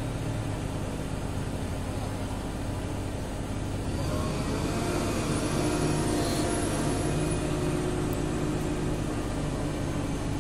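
Diesel engine of a Hitachi long-reach demolition excavator running steadily under load. About halfway through, a higher whine rises and falls over the engine hum as the boom and attachment move.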